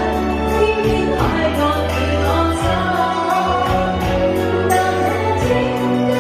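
A pop song performed with singing over a backing of sustained bass and chords and a steady drum beat.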